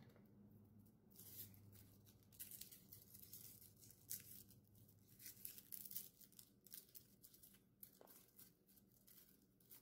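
Dry, papery garlic skins crackling and tearing as cloves are peeled by hand: a faint string of irregular soft crinkles.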